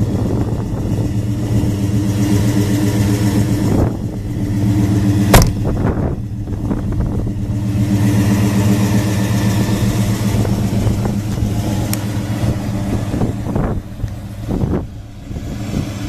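A 1966 Ford Thunderbird's V8 idling steadily. A single sharp knock about five seconds in, from a car door being shut.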